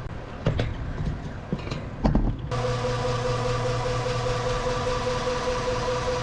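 A few sharp knocks, then a steady machine hum that starts suddenly about two and a half seconds in.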